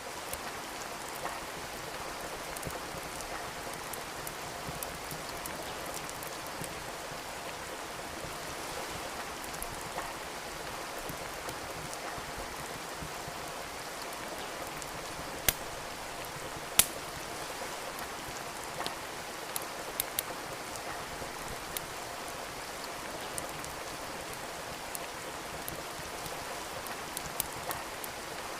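Steady rain with a wood fire crackling in a fireplace: scattered sharp pops over the even hiss of the rain, two louder pops a little past halfway.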